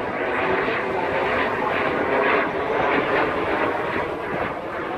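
Display aircraft flying by: a steady rush of engine noise that swells a little about two seconds in.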